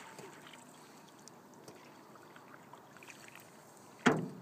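Faint trickling of water off a canoe paddle, then about four seconds in a single sharp knock as the wooden paddle is set down across the aluminum canoe's gunwales.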